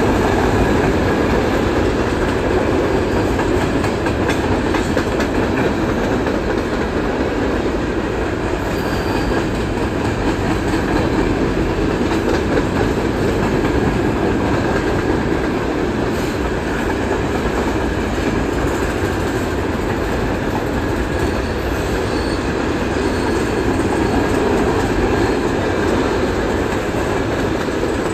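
CN freight train's cars rolling past on the rails: a steady, loud rumble of steel wheels on track, with scattered clicks.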